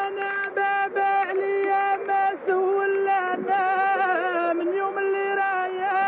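Music with a singing voice holding long notes that waver and bend in ornaments.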